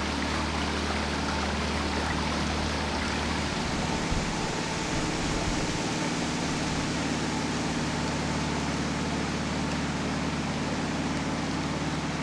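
Small cabin cruiser's petrol outboard motor running steadily under way, its low hum under a continuous rush of water and wind noise; the engine note shifts about four seconds in.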